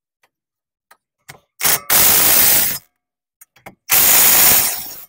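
Cordless impact wrench hammering in two bursts of about a second each, running the brake caliper bolts down tight.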